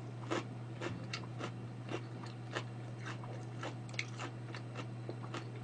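A person biting and chewing a slice of raw vegetable close to the microphone: a run of small sharp clicks, about three a second, over a steady low hum.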